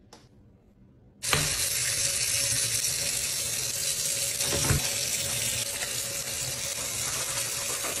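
Kitchen tap running into a stainless steel sink, switching on suddenly about a second in and then flowing steadily, with a single light knock about halfway through.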